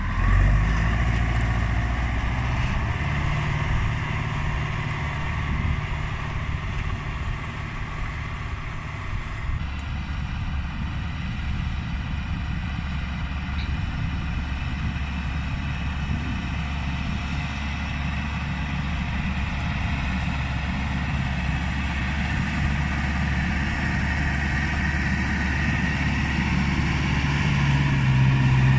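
Case CX80 tractor's diesel engine running steadily under load while pulling a four-furrow plough through heavy soil. The sound changes abruptly about a third of the way in and swells slightly near the end.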